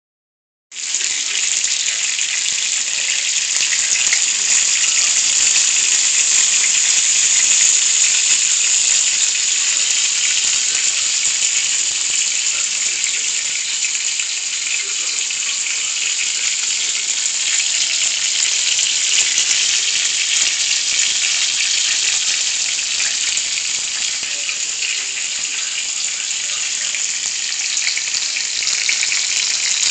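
Chicken breasts sizzling in hot oil in a frying pan: a steady frying hiss that starts just under a second in.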